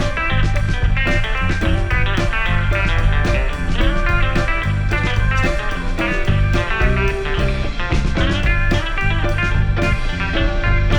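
Background music: a guitar-led band track with bass and drums and a steady beat.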